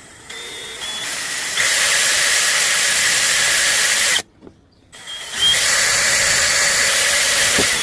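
Power drill with a 3/32-inch bit boring small screw holes through a speaker mounting bracket. It runs twice: the first run builds up over about a second and a half, then the drill stops briefly about four seconds in and starts again for the second hole.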